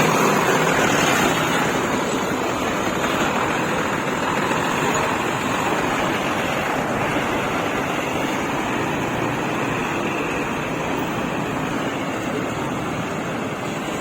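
Coach bus driving past and pulling away: a steady rush of engine and road noise that slowly fades.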